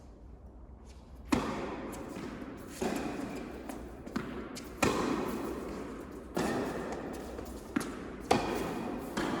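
Tennis rally on an indoor court: a tennis ball struck by rackets and bouncing on the court, about seven sharp pops spaced a second or two apart starting about a second in, each echoing in the hall.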